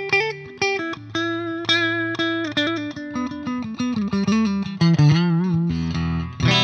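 Squier Telecaster played through the clean channel of a Peavey Bravo 112 all-tube amp into a 2x12 cab with Vintage 30 speakers: a quick run of picked single notes, one note shaken with vibrato past the middle, then a chord that rings near the end. The tone is bright and chimey.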